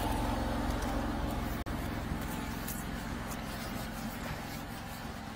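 Engine of a high-pressure sewer jetter running steadily, a low hum that slowly grows fainter. It cuts out for an instant about a second and a half in.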